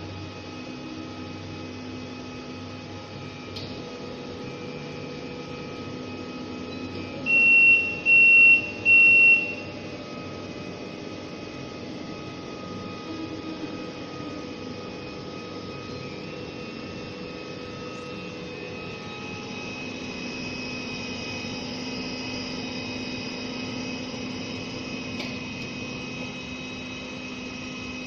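WDS-620 BGA rework station running with a steady fan hum, its buzzer giving three short high beeps in a row.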